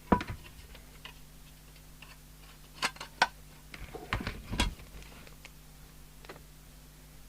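The underside lid of an Amstrad CB901 CB radio being fitted back on: scattered sharp clicks and knocks as the cover and its fixings are handled, a few around three seconds in and a small cluster about four seconds in, over a faint steady hum.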